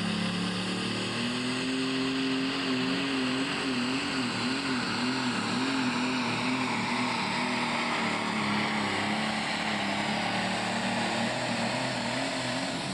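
Pro stock pulling tractor's turbocharged diesel engine at full throttle under the load of the sled. Its pitch wavers up and down as the revs surge, then drops right at the end.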